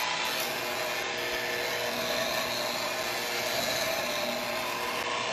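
Electric hand mixer running steadily, its beaters whirring through batter in a bowl.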